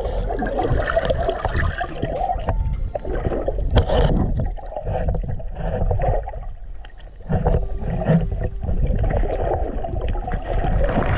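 Muffled underwater sound picked up by a camera held under the surface: water rushing and sloshing around the housing, with many short sharp clicks scattered through it.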